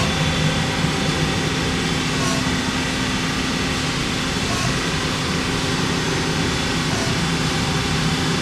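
INDEX ABC CNC lathe running: a steady mechanical hum with a few constant low tones.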